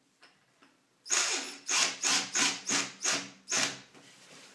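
Cordless drill-driver driving a screw in about seven short bursts, starting about a second in and stopping near four seconds.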